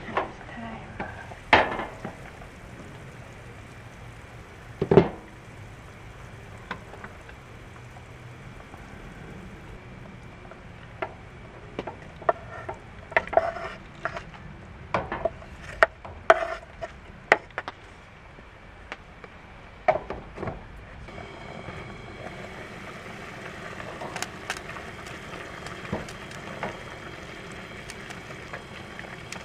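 Cooking at a camp stove: sharp knocks and clicks of a pot, lid and wooden spoon, with a run of taps and scrapes as chopped cabbage is scraped off a wooden board into the pot. Over the last several seconds the food sizzles steadily as it is stirred in the pot.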